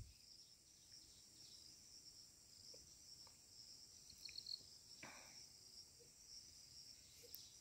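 Near silence with a faint, steady chirring of crickets.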